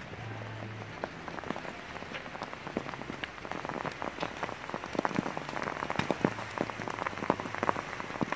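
Rain falling, with many sharp drop ticks that come thicker and louder toward the end.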